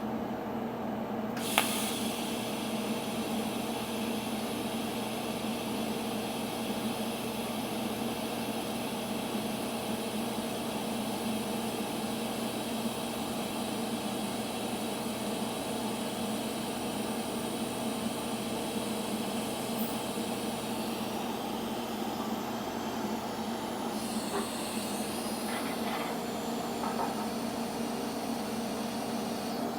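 TIG welding arc on steel, fusing a steel -10 fitting into a steel oil pan: a steady hiss over an even electrical hum. It starts with a click about a second and a half in.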